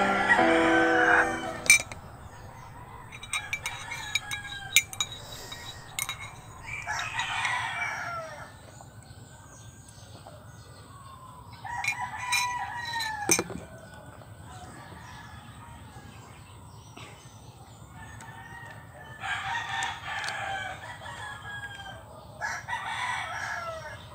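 Rooster crowing several times, the clearest a long held crow about twelve seconds in that drops in pitch at its end. A few sharp clicks come before the first crow.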